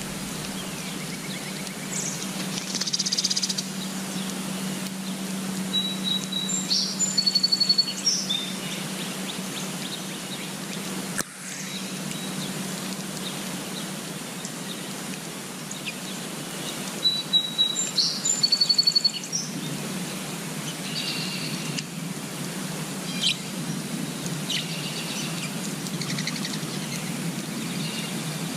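Songbirds chirping and singing in short high trilled phrases over steady outdoor background noise. A very similar song phrase comes twice, with scattered single chirps in between.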